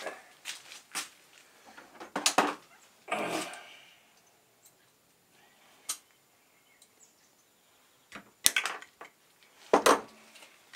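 Intermittent clicks and knocks of small metal tools and parts being picked up and set down on a bench, with a brief scraping rasp about three seconds in and the sharpest knocks near the end.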